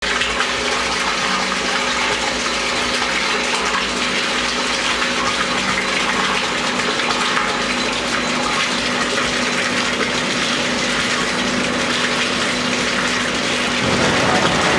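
Cooling water returning from an impurity separator, pouring in a stream onto the surface of a cooling-water tank: a steady splashing rush, with a low steady hum underneath. It grows a little louder near the end.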